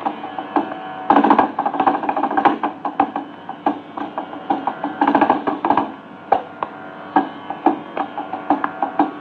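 Mridangam playing a solo passage (tani avartanam) in a Carnatic concert: fast, dense rhythmic strokes with ringing, pitched tones, over a steady drone, on a dull-sounding old radio recording.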